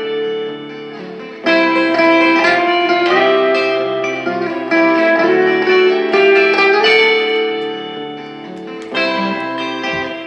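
Clean-toned Fender Stratocaster electric guitar played through an amplifier: chords and single notes ringing out, with a fresh strike about a second and a half in and again near 7 and 9 seconds.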